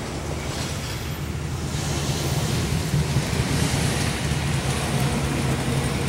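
Road traffic: a steady low engine hum, with the rush of passing vehicles swelling about two seconds in.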